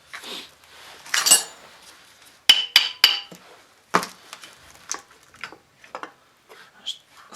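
Metal engine parts and tools clinking and knocking as they are handled and set down during an engine teardown. Three sharp, ringing clinks come close together a couple of seconds in, then a heavier knock and scattered lighter taps.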